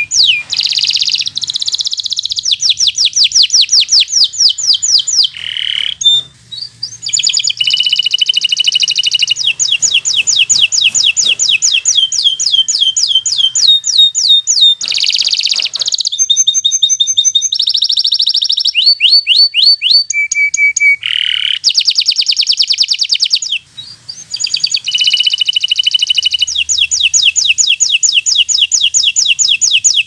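Local canary singing loud and almost without a break: long rolling trills of fast repeated notes, each sweeping down in pitch, switching from one trill to the next. The song breaks off briefly twice, about six seconds in and again near twenty-four seconds.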